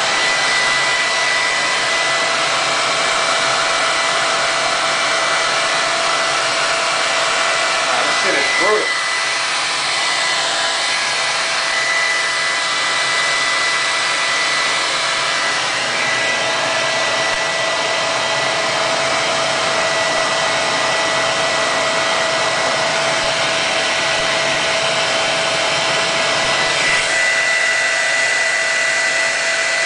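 Handheld hair dryer running steadily, a rush of air with a steady whine through it.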